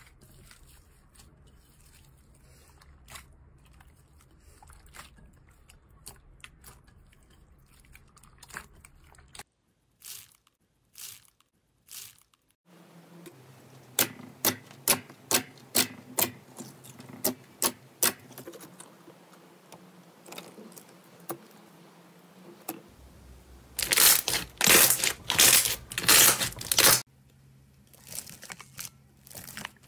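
Slime being handled and pressed by hand in a run of short clips: scattered faint clicks at first, then a string of sharp sticky pops, and a loud stretch of dense crunchy crackling near the end.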